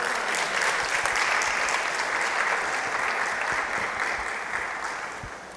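Congregation applauding, starting at once and dying away over about five seconds.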